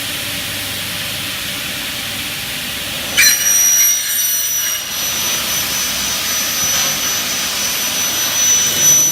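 Double-head aluminium cutting saw running with a steady hiss, then about three seconds in its blade cuts into an aluminium profile with a sudden high ringing whine that holds until near the end, slicing off a thin piece.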